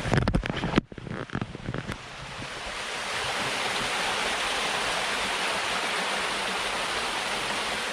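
Rustling and knocking close by for the first couple of seconds, then the steady rushing of a small waterfall, which swells a little and holds.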